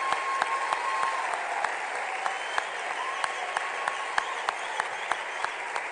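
Large audience applauding steadily, many hands clapping together, with individual nearby claps standing out sharply.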